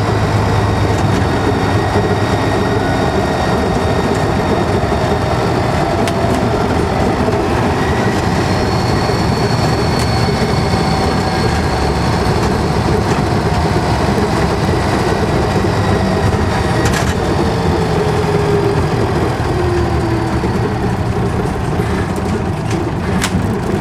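Scania N94UD bus's diesel engine running inside the cabin, with a thin high turbo whistle over the engine hum, clearest a few seconds in and then fading. A tone falls in pitch a little past the middle, and two sharp knocks or rattles come later on.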